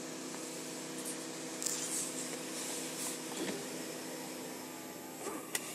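Radiator cooling fans of a 2004 Nissan 350Z running at high speed, switched on by a scan-tool actuation test: a steady rush of air with a low hum underneath, which is very noisy. A few light taps come near the middle and near the end.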